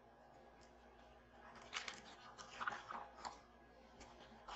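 Faint rustling and crinkling of items being handled, in a few short scattered bits between about a second and a half and three seconds in; otherwise near silence.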